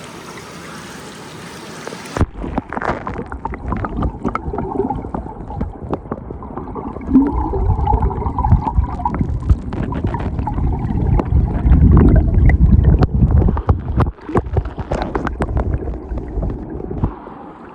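Steady rush of a mountain creek, then from about two seconds in a muffled, close sloshing and gurgling of creek water with scattered knocks and a low rumble, as the bull trout is handled and released into the stream.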